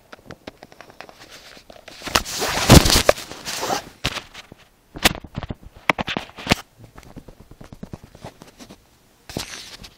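Handling noise on a phone's microphone: rubbing and rustling with scattered clicks and knocks, loudest in a long rustle about two to three seconds in.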